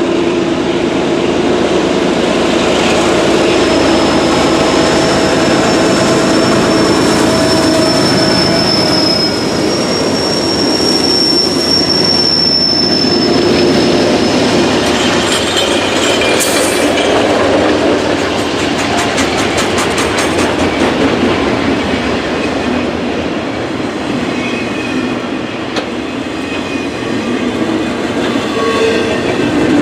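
Long freight train rolling past, steel wheels on rails clacking. A high, thin wheel squeal rings for several seconds in the first half.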